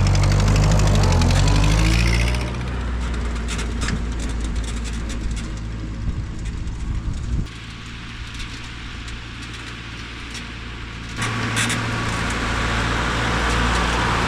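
An engine running, its pitch shifting for the first couple of seconds and then settling into a steadier drone with scattered clicks.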